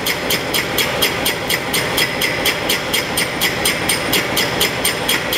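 A machine running steadily under a rushing noise, with a regular high-pitched click about four times a second.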